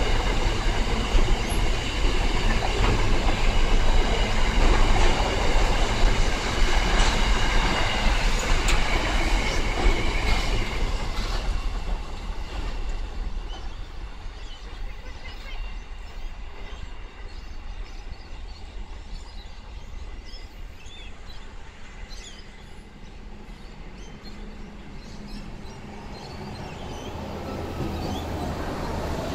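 Container freight train passing close by, its wheels rumbling and squealing on the rails with some clicking over the joints, then fading as it draws away. Near the end, a suburban passenger train is pulling into the platform.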